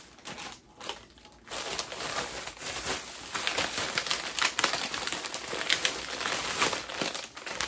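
Plastic snack packaging crinkling and rustling as the packages are handled. It is quieter at first and becomes dense from about a second and a half in.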